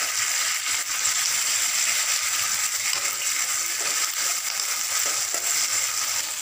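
Green chillies, curry leaves and ginger-garlic paste sizzling in hot oil in an aluminium kadai. A spatula stirs them and scrapes the pan, over a steady frying hiss.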